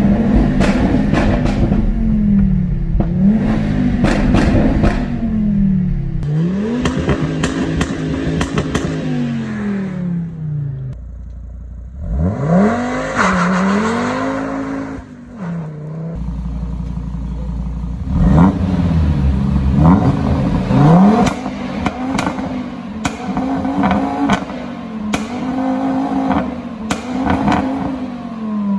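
Audi TT RS's turbocharged five-cylinder, stage 2 tuned with a modified exhaust, being revved again and again, its note rising and falling with each blip. Sharp crackles and pops from the exhaust come through the revs, with a brief lull near the middle.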